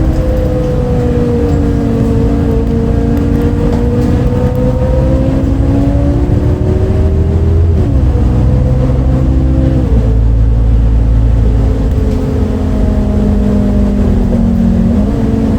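MAN D0836 six-cylinder diesel of a Lion's City bus, heard from inside the bus, pulling through its ZF Ecomat automatic gearbox. The engine note climbs slowly and drops sharply twice, about 8 and 10 seconds in, as the gearbox shifts up, then jumps back up near the end. The engine has an unusual note that the uploader had never heard from a MAN bus before.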